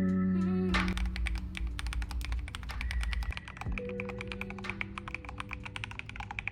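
Scorpio 46 r2 mechanical keyboard being typed on, starting about a second in as a fast, dense run of keystroke clicks.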